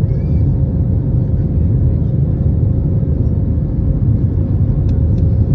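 Passenger airplane cabin noise during the climb after takeoff: a steady, loud low rumble of the engines and rushing air, with a faint steady hum above it.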